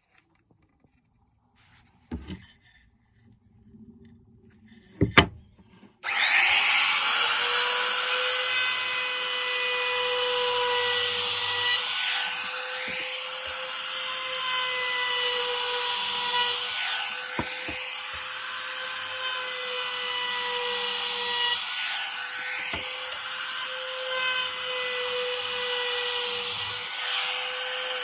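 Makita 3709 trim router switched on about six seconds in and running at full speed with a steady high whine, routing wood. The pitch sags slightly every five seconds or so as the bit takes load. Two sharp knocks come before it starts.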